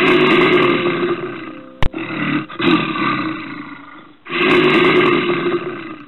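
A bear calling with three long, rough roars, the second one fading away. A sharp click comes just under two seconds in.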